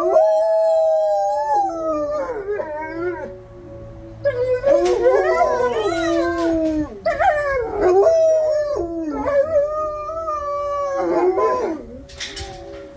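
Two shepherd-type wolfdogs howling together in overlapping, wavering howls, set off by a tornado warning siren test, whose steady tone sounds underneath. The howling breaks off briefly about four seconds in and dies down near the end.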